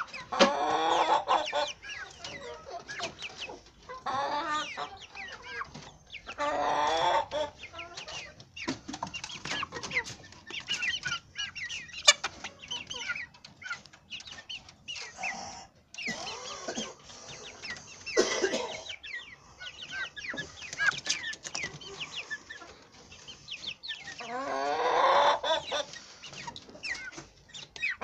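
Young chickens clucking and calling close by, with several louder drawn-out calls of a second or two each, the loudest about a second in and near the end. A few sharp clicks among the calls.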